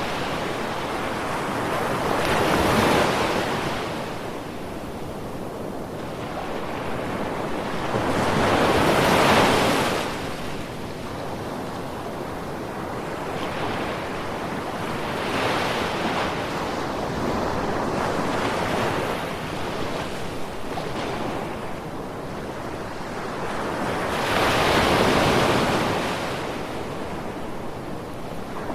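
Ocean waves breaking and washing on a shore, a steady surf wash with a louder wave rising and falling about every six to ten seconds, four times.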